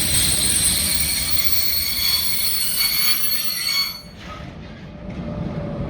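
Railway wheels squealing on the track as a train rolls through the station: several high, steady whistling tones over a rumble. They cut off suddenly about four seconds in, leaving a quieter low rumble with a faint tone slowly falling in pitch.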